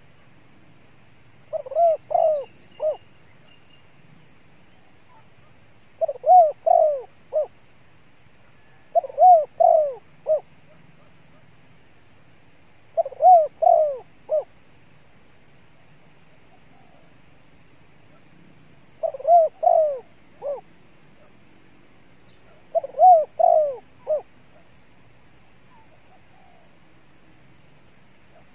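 Spotted dove cooing: six phrases of three or four soft, pitched coo notes, each phrase ending in a short clipped note, repeated every three to six seconds.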